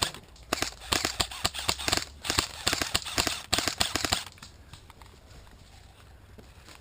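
Airsoft guns firing in quick bursts, a dense run of sharp snapping shots for about four seconds that then stops.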